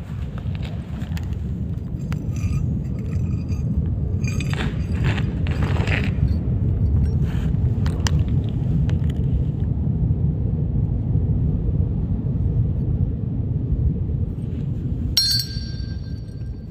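A steady low rumble with scattered clinks of small drilled steel plates being handled on concrete; about fifteen seconds in, one plate strikes the floor with a sharp clink and a short metallic ring.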